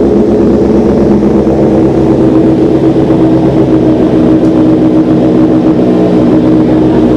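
2018 Kawasaki Z900's 948 cc inline-four engine idling steadily and loud through an SC-Project full-system aftermarket exhaust.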